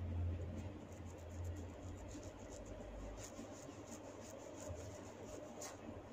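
Quiet rubbing of hands on skin during a massage, with a run of faint light clicks and one sharper click near the end, over a low steady hum.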